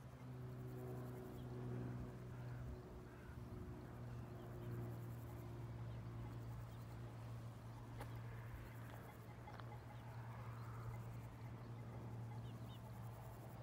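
Faint countryside ambience: a steady low hum, a few short bird chirps, and a single sharp click about eight seconds in.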